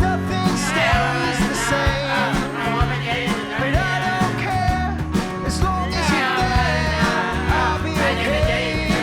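A song playing: a sung melody over bass, guitar and a steady drum beat.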